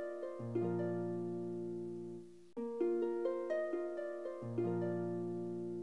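Background music of short plucked notes over held bass notes, fading briefly about two and a half seconds in before the phrase starts again.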